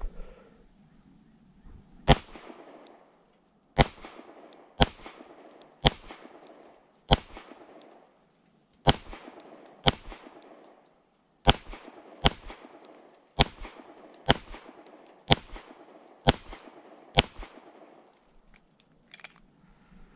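Springfield Armory Prodigy 9mm pistol firing a string of fourteen shots at a steady pace of about one a second, each shot followed by a short echo. A fainter clack comes near the end.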